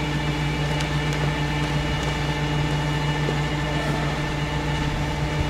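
Rollback tow truck's engine running, a steady, unchanging drone with a constant hum.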